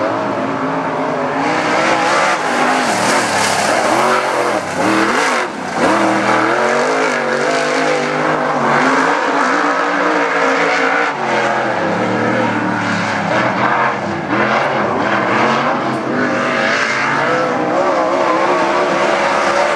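A single dirt-track modified race car's V8 engine running hard around the oval. Its pitch drops as it comes off the throttle into the turns and climbs again as it accelerates down the straights.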